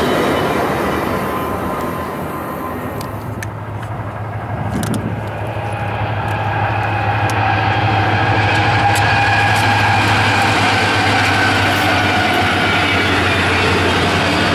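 A freight train passing: the rumble dips over the first few seconds, then diesel locomotives and a double-stack container train come up and roll by. A steady low engine hum and wheel-on-rail noise grow louder and then hold steady.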